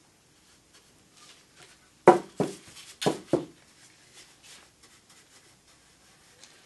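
Four light knocks in two close pairs about a second apart, among faint taps and rubbing: objects handled and set down on the workbench while the frame is being dyed.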